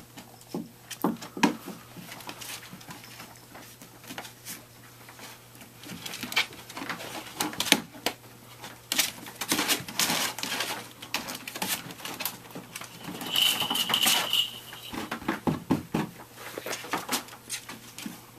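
Cavachon and Shichon puppies wrestling and scrambling in a plastic kiddie pool, with irregular scuffling, scratching and tapping of paws on plastic and fleece. A high squeak lasting about a second comes about thirteen seconds in.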